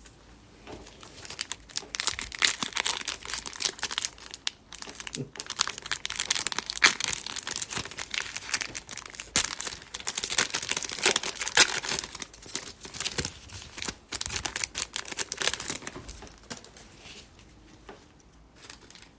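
Trading card pack wrappers being torn open and crumpled: a long run of crackly crinkling and tearing that dies down a few seconds before the end.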